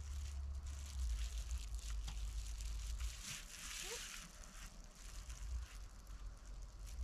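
Crinkling and rustling of double-bubble foil insulation handled and pressed flat while it is measured out with a tape measure, over a low rumble of wind on the microphone.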